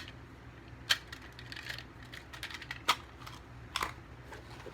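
Small gear being handled and set down: a few sharp clicks, about a second in, near three seconds and near four, with light tapping and rattling between.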